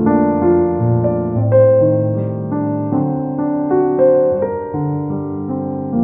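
Background piano music, with melody notes and chords changing about every half second.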